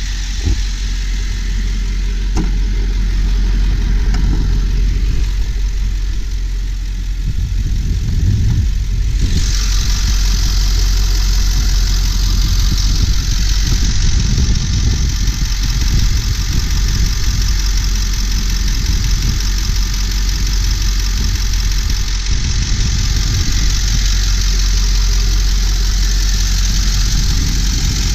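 Ford 7.3-litre Powerstroke turbo diesel V8 idling steadily. About nine seconds in the engine sound turns fuller and brighter, as the hood opens over it.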